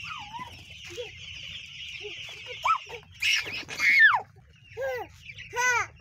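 A large flock of young chicks peeping in a steady dense chorus. About halfway through the chorus drops away and a toddler gives a few short, loud, high vocal calls.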